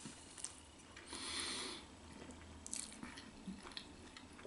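Quiet, close chewing of a mouthful of a stacked chicken-and-beef burger on a ciabatta bun, with a few small mouth clicks and a soft hiss about a second in.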